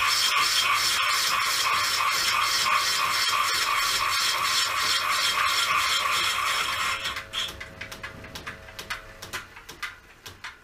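Cutting tool in a milling machine skimming the inside of a belt-driven motorcycle brake drum. The rasping cut pulses about two to three times a second, once per turn, as the tool bites harder on the drum's high spot. About seven seconds in the cutting stops abruptly, leaving a faint hum and scattered clicks that fade away.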